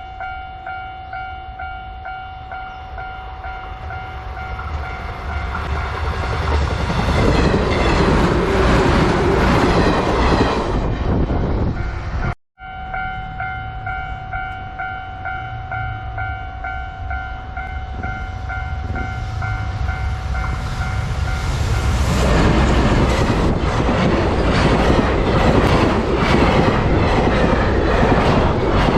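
Japanese level-crossing warning bell ringing steadily as a train approaches, then the train's rumble and wheel clatter over the crossing grow loud and drown the bell. After a sudden cut, the crossing bell rings again and a second train approaches and passes with loud rumbling and clatter from about two-thirds of the way through.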